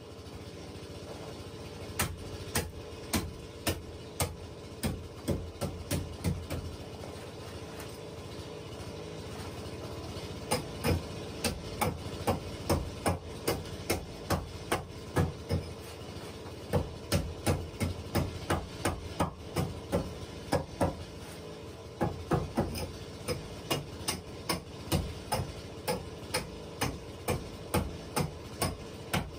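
Hammer blows on rough chainsaw-milled wooden floor planks, nailing them down: runs of sharp strikes at about two a second, with short pauses between runs.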